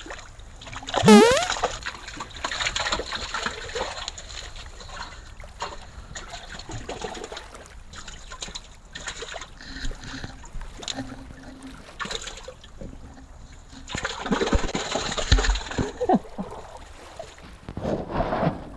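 Water splashing and trickling in shallow seawater over seaweed and rocks, beginning with a freshly landed mackerel thrashing. Irregular bursts of splashing come early, again about two-thirds of the way through and near the end. A loud, brief rising squeal comes about a second in.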